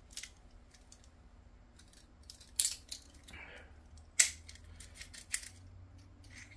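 Scattered small metal clicks and taps of a hex driver and steel parts being handled while the set screw on an air rifle's slug power probe is tightened down. The sharpest click comes about four seconds in, with a short soft scrape just before it.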